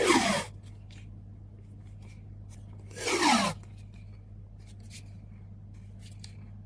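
Adhesive tape pulled off a roll in two short rasping strips, one right at the start and one about three seconds in, each falling in pitch as it goes.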